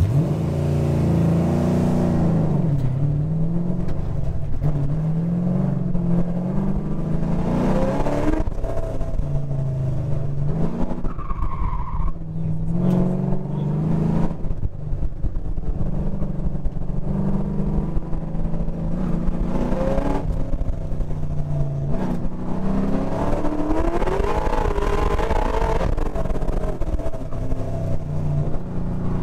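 LS7 7.0-litre V8 heard from inside the car, revving up and dropping back again and again as the driver accelerates and lifts through an autocross course.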